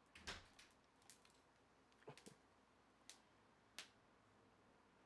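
Clear plastic protective wrap crinkling as it is peeled off and handled. It makes a series of short, faint crackles, the loudest just after the start and another near the four-second mark.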